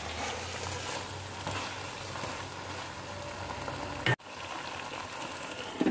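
Curry paste sizzling in a wok around raw fish pieces, a steady frying hiss. It cuts out for an instant about four seconds in.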